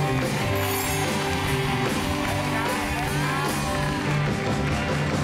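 Band music with guitar, playing steadily.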